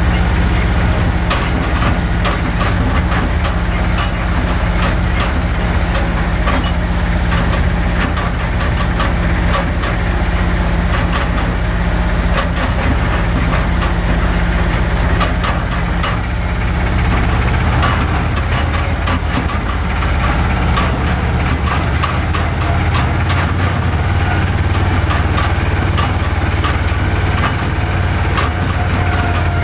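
Old green Kramer tractor's engine running steadily while driving over a gravel track, heard from inside its cab, with frequent clicks and rattles over the top. The engine note changes about halfway through.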